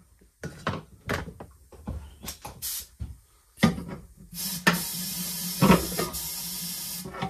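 Workshop handling noises: a string of clicks and knocks, then a steady hiss lasting about two and a half seconds.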